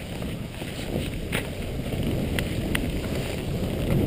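Wind rumbling on the microphone over the steady scrape of sliding across snow, slowly growing a little louder, with a few faint clicks.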